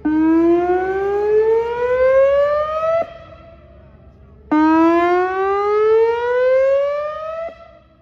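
Whelen Vortex electronic outdoor warning siren sounding a repeated rising tone. Each rise starts abruptly, climbs for about three seconds and cuts off, with a pause of about a second and a half before the next.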